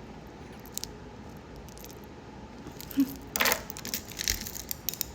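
Metal wristwatches clinking and jingling against each other as they are handled, with a few light clicks early on and a busier burst of jingling about three and a half seconds in.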